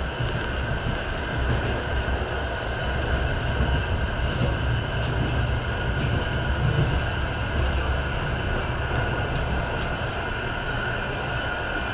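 Passenger train running along the track, heard from inside the carriage: a steady low rumble of wheels on rail with a steady high whine over it.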